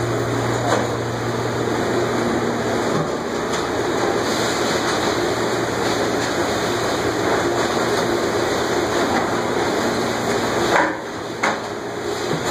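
Champion rack-conveyor commercial dish machine running, its wash pumps and sprays making a loud, steady rush of water and motor noise. A few sharp knocks come as an empty plastic dish rack is carried through the curtains, and near the end the noise briefly drops.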